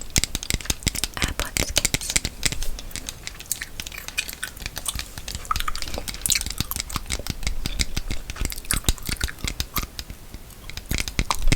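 Close-miked ASMR trigger sounds: a dense, irregular run of small clicks and crackles without words, getting louder near the end.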